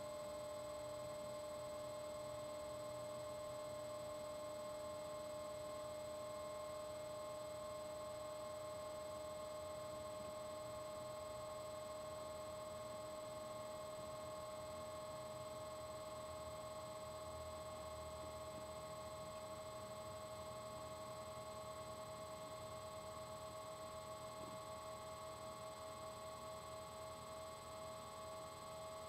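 A steady electrical hum: several constant whining tones over a faint hiss, wavering slightly near the end.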